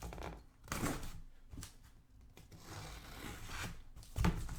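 Packaging being torn open and handled on a sealed trading-card case: a few short ripping and scraping rasps, then a knock near the end.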